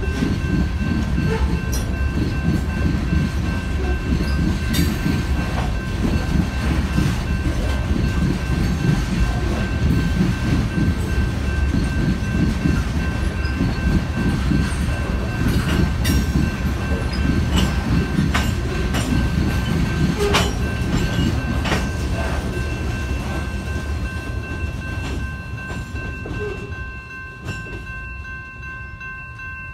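Freight train cars rolling past: a steady low wheel rumble with frequent clicks as wheels cross rail joints, and a steady high-pitched ringing tone held over it. The rumble eases off near the end.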